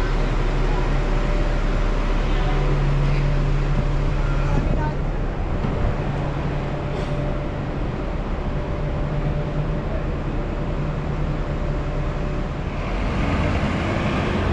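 Cabin noise on the upper deck of a moving double-decker transit bus: a steady low engine hum with road noise, and a rise in hiss near the end.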